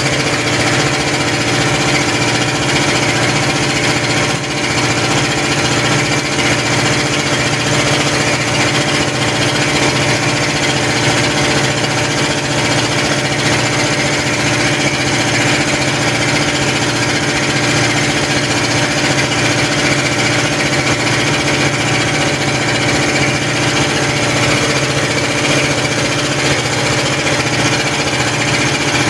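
A machine running steadily, a constant mechanical drone with a regular low pulse.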